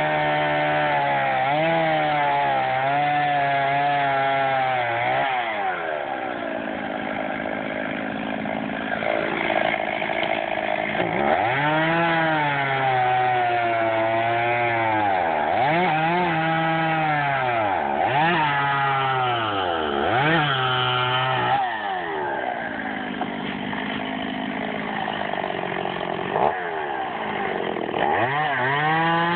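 Two-stroke chainsaw cutting wood. Its engine note drops each time the chain bites into the cut and rises again as it frees, about six times over the half minute.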